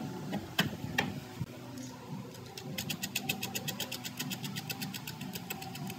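Two sharp knocks of pine frame pieces being fitted together by hand, then a rapid, even run of light clicks, about seven a second, lasting some three seconds.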